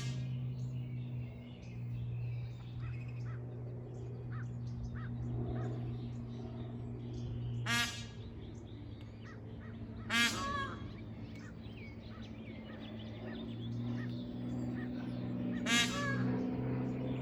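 Peahen (Indian peafowl) giving three short, loud honking calls, about eight, ten and sixteen seconds in, over a steady low hum.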